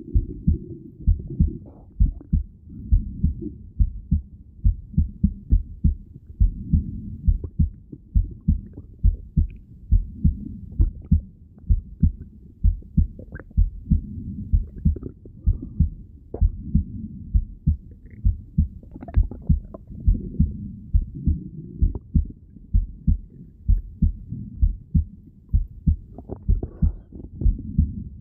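Heartbeat heard through a stethoscope: a steady, regular pulse of low thumps with a soft rumble between beats, and a few brief higher gurgles around the middle and near the end.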